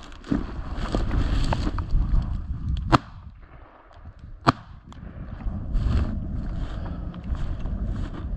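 Footsteps brushing through dry cattails and grass over patchy snow. The walking pauses about three seconds in, and there are two sharp clicks, one about three seconds in and one about four and a half seconds in.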